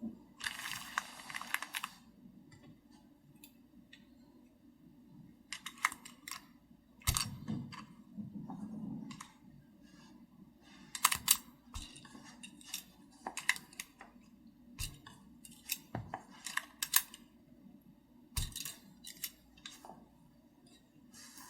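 Sparse, irregular keystrokes on a custom mechanical keyboard with an SPM AL66B housing and Keychron Red linear switches, coming in short clusters of clicks, with a couple of brief rustling stretches between them.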